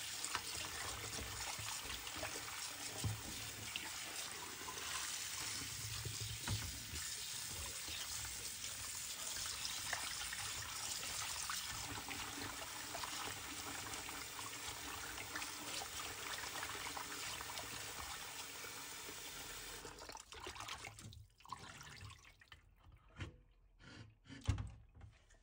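Tap water running into a steel bowl while hands rub and rinse pieces of fish, splashing in the water. About twenty seconds in the flow stops, leaving a few scattered drips and splashes.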